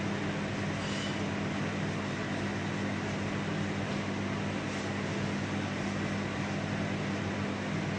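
Microwave oven running at full power in micro mode: a steady, unchanging hum with the fan.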